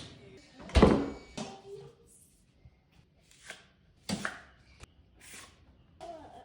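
A series of irregular knocks and thuds, the loudest and deepest about a second in.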